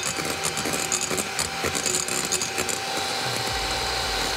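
Electric hand mixer whisking egg whites into a French meringue in a glass bowl while sugar is rained in, its motor running with a steady whine.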